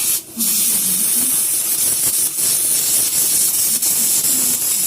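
Steady loud hiss of a pressurised spray blasting dirt off a fuel-system part, breaking off briefly just after the start and then running on.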